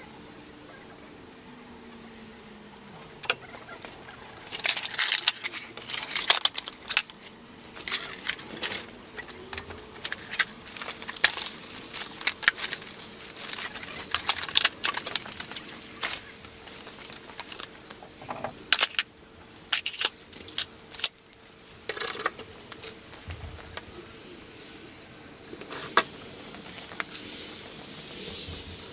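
Irregular clicks, knocks and light metallic clinks of metal tool parts being handled and set, over a faint steady hum.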